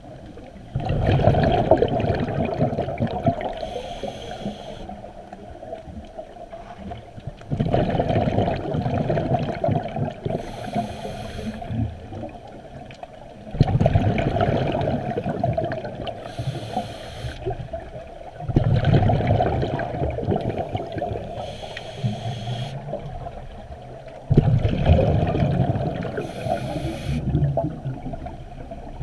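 Scuba diver breathing through a regulator, heard underwater. There are five breaths, each a short hiss on the inhale followed by a sudden loud rush of exhaled bubbles that fades away over a few seconds.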